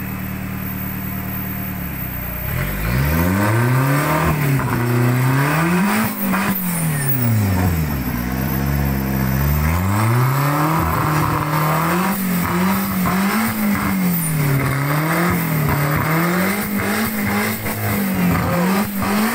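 Off-road 4x4 truck engine revving up and down over and over, after a steady note for the first two seconds, with occasional knocks.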